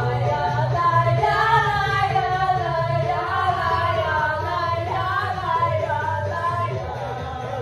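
Pop dance music playing with a steady bass, with a group of women singing along to it.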